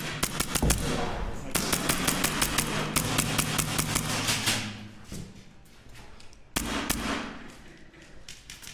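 Airsoft gunfire: rapid strings of sharp cracks. The densest run is from about one and a half to four and a half seconds in, with another short burst near seven seconds.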